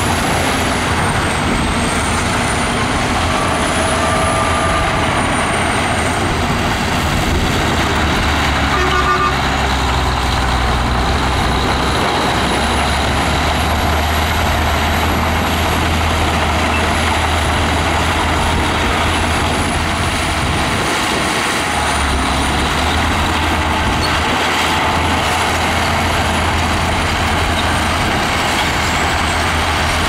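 Heavy diesel engines of a crawler bulldozer and dump trucks running steadily under load, a continuous low engine rumble.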